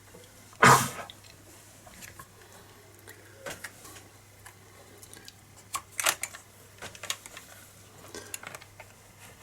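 Metal parts of a B3 air rifle being handled during reassembly: a sharp knock about a second in, then scattered light clicks and taps.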